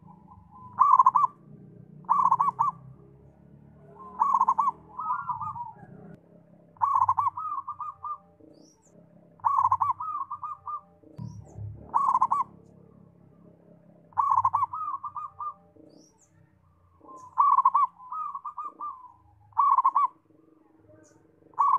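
Zebra dove (perkutut) singing its cooing song: about ten phrases, one every two seconds or so, each a quick run of pulsing coos.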